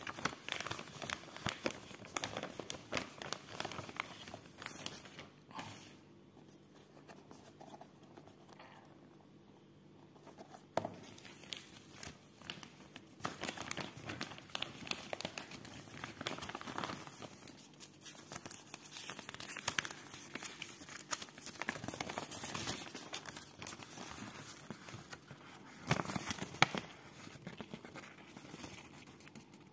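Thin plastic carrier bag crinkling and rustling as hands open it and handle the items inside, with sheets of paper rustling near the end.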